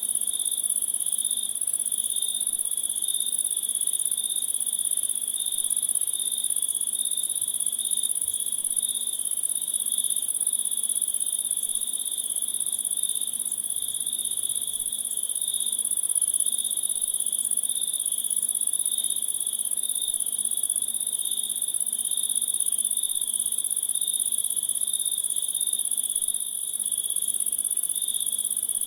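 Insect chorus in a nature ambience: continuous chirring in two steady pitches, one very high and one lower, with no breaks.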